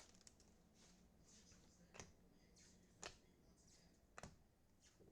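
Trading cards being handled: faint soft swishes and three light taps about a second apart.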